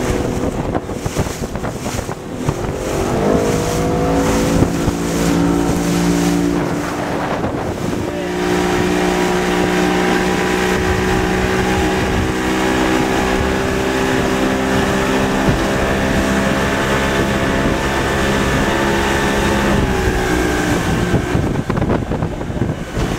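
A small fishing boat's engine speeding up about three seconds in, running steadily under way, then throttling back near the end, with wind buffeting the microphone.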